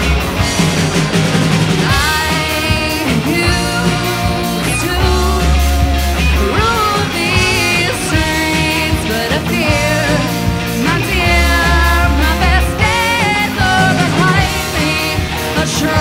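Rock band playing live: a woman singing lead over electric guitars, electric bass and a drum kit, the vocal line coming in about two seconds in.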